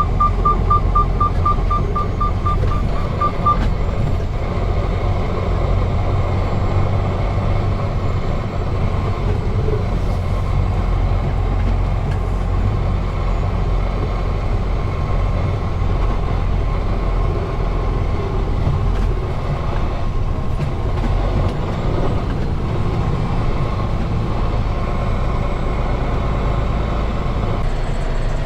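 Semi truck's diesel engine running at low speed as the rig is maneuvered into a parking spot. A fast in-cab warning beep, about five a second, sounds for the first few seconds and then stops.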